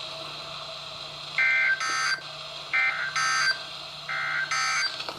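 Emergency Alert System end-of-message code from NOAA Weather Radio: three short bursts of high-pitched digital data tones, each about a second and a half after the last, marking the end of the warning message. A faint steady hum runs underneath.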